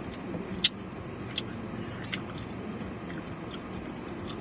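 Steady low hum of a car cabin, with a few short sharp clicks: the loudest about two-thirds of a second in, another just under a second later.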